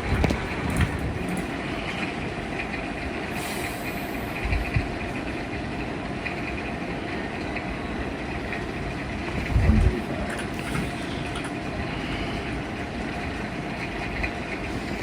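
44-inch Minka Aire Supra ceiling fan running steadily: an even rush of air from the blades with a faint steady motor hum. The owner suspects its capacitor may be drifting. A brief low thump about two-thirds of the way through, like air buffeting the microphone.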